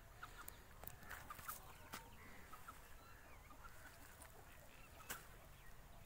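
Near silence: faint outdoor ambience with a few scattered distant bird calls and light clicks.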